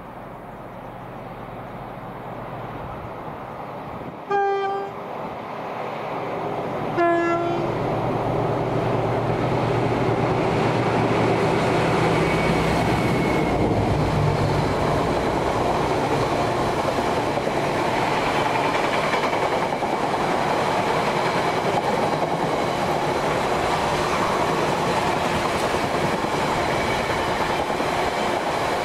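Diesel freight locomotive sounding a two-tone horn, a short higher note then a lower one a few seconds later, then growing louder as it draws near. It is followed by a long rake of tank wagons rumbling and clattering over the rail joints.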